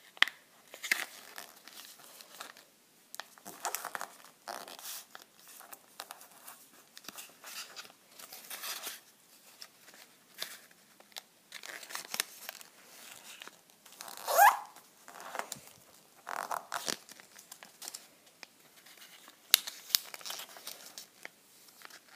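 Origami paper being folded and creased by hand for squash folds: irregular rustles and crinkles of the paper. About fourteen seconds in there is one short rising squeak, the loudest sound.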